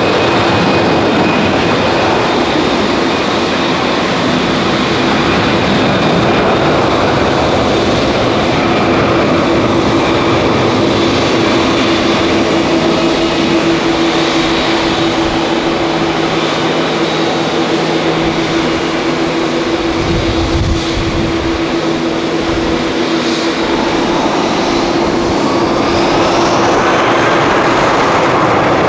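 Boeing 787-9 airliner's GEnx turbofan engines running at taxi power: a steady jet hum and rush with a held tone. Near the end a whine rises in pitch as the engines spool up.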